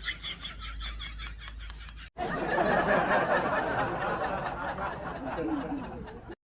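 Quick, rhythmic snickering laughter for about two seconds. It cuts off suddenly and is replaced by a louder, steady rushing background noise until just before the end.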